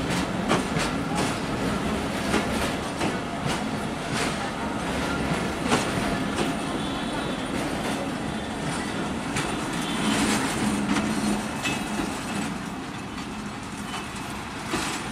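Bangladesh Railway passenger coaches rolling past close by, their wheels clattering irregularly over the rail joints.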